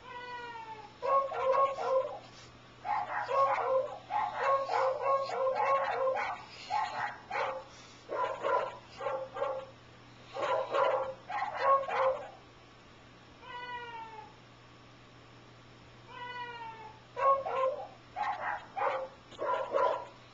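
A short call gliding down in pitch sounds three times. After each, a French bulldog answers with long strings of weird, short barks, louder than the call.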